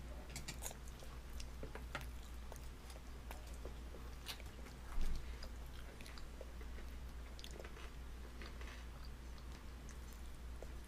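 A baby biting and chewing a piece of fried fish-and-chips food: small irregular crunchy mouth clicks and smacks, with one brief louder thump about five seconds in.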